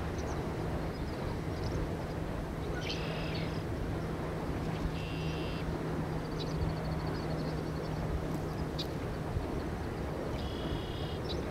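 Open-country outdoor ambience: a steady wind rumble with a low steady hum that fades out about three-quarters through, and short chirping bird calls three times.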